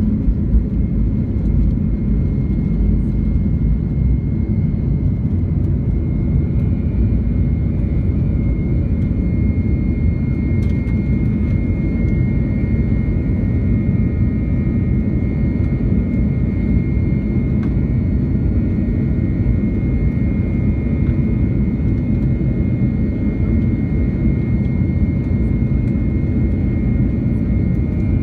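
Jet airliner engines at takeoff power heard from inside the cabin as the plane lifts off and climbs. The sound is a steady, even roar, with a thin high whine that grows stronger about seven seconds in.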